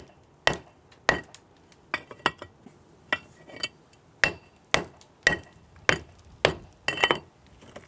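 Hammer striking a steel bolster chisel again and again, chipping away concrete and tile at the edge of brickwork. About a dozen sharp blows, roughly two a second, some in quick pairs, each with a short metallic ring.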